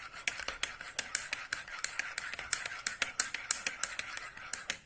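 Teaspoon stirring honey into warm milk, clinking quickly against the side of the cup about five or six times a second. It stops at the very end.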